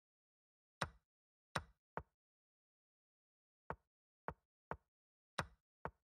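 Chess.com move sound effects: eight short wooden clacks of pieces being placed, coming in quick bursts. Three of them are the longer, louder capture sound, about a second in, about a second and a half in, and near the end.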